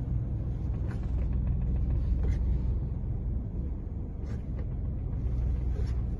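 Steady low rumble of a car being driven slowly, heard from inside the cabin, with a few faint clicks.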